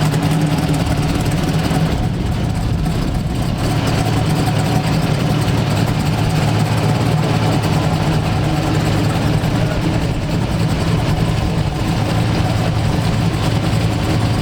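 Big-block V8 muscle car idling steadily, a constant low rumble.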